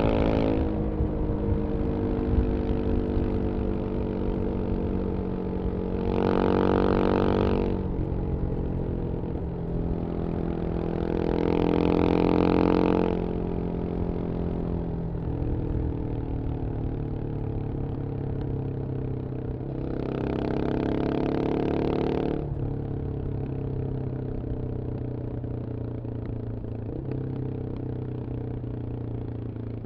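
Yamaha XT 600's single-cylinder four-stroke engine running at speed through a GPR Trevale exhaust, its pitch easing slowly down. Three times it swells louder with a rushing sound for a second or two.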